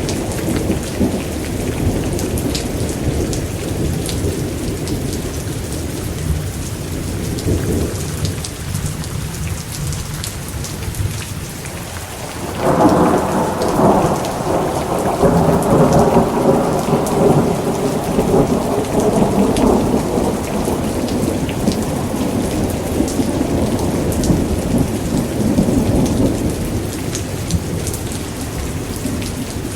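Thunderstorm: steady heavy rain with low rumbling thunder. About twelve seconds in, a louder thunderclap breaks and rolls on for most of the rest.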